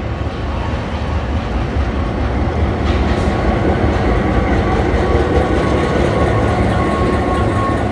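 A train rolling slowly past at close range: heritage carriages, then NSWGR 42 class diesel-electric locomotive 4204 with its EMD V16 two-stroke engine running, its rumble getting louder as the locomotive comes alongside. A thin steady high whine runs through it, with a single click about three seconds in.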